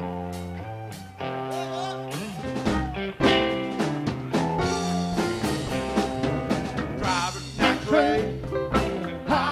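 A live rock band playing: electric guitar notes over bass, some notes sliding in pitch, with the drums coming in strongly about three seconds in.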